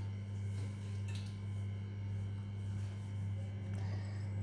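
A steady low electrical hum, with a couple of faint clicks about a second in and near the end.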